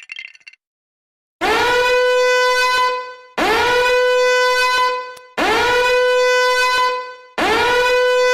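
Meme sound effect: four identical long horn blasts at a steady pitch, each scooping up at the start, about two seconds apart. A short jingly clatter comes just before them.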